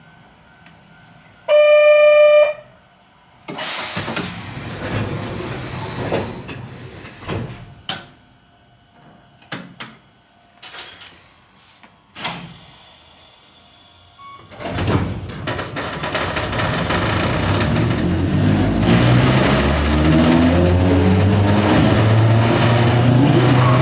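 Narrow-gauge electric train (Sangi Railway Hokusei Line car Mo 277). A loud one-second horn-like tone sounds early, then come scattered knocks and hissing bursts and a brief high ringing tone. After about fifteen seconds the train pulls away, its running noise growing louder and its motor tone rising steadily in pitch as it accelerates.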